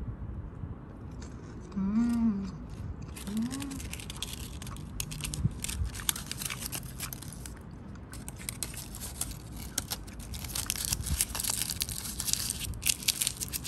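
Gold foil wrapper of a Ferrero Rocher chocolate being crinkled and peeled off, together with its fluted paper cup: a dense crackling rustle that starts about three seconds in and grows busier in the second half.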